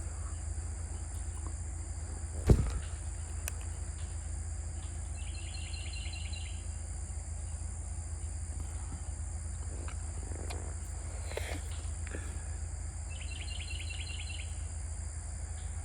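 Outdoor ambience: a steady high-pitched insect drone over a low rumble, with a short, rapid chirping trill heard twice. A single sharp knock comes about two and a half seconds in.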